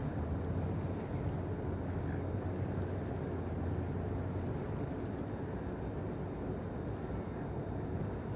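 A motor boat under way: a steady low engine hum under an even rushing noise of water and wind.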